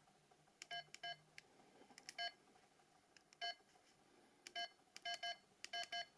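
Nokia 282 keypad beeping as its keys are pressed, about a dozen short beeps in quick irregular runs, as when a code is keyed in.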